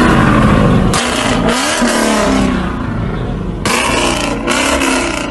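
Ford Mustang engine revved hard, its pitch climbing and falling, while the exhaust shoots flames, with loud crackling blasts from the exhaust about a second in and again around four seconds in.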